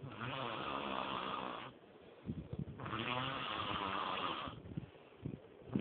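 A person snoring: two long snores of about a second and a half each, with a fluttering rattle, separated by quieter breathing with a few small clicks.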